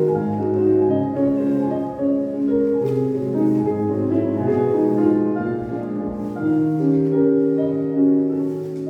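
Instrumental music: slow chords of held, overlapping notes that change about once a second.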